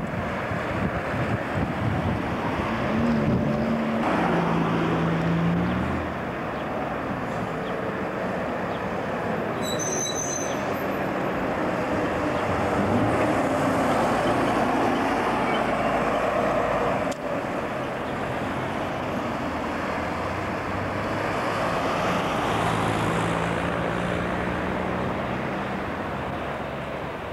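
Street traffic with a double-decker bus's diesel engine running as it pulls along and passes close by; a brief high-pitched squeal about ten seconds in.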